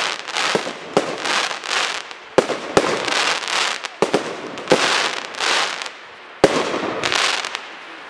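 Aerial fireworks display: shells bursting with sharp bangs, roughly one a second, each followed by a wash of crackling, hissing sparks. It thins out and grows quieter near the end.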